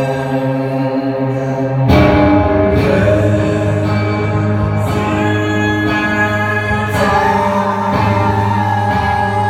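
Electric guitar played live through an amplifier, with a man singing over it; a new, louder chord comes in about two seconds in.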